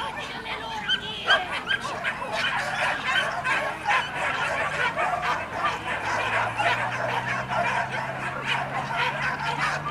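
A pack of leashed boar-hunting dogs barking and yelping all at once, many short calls overlapping without a break.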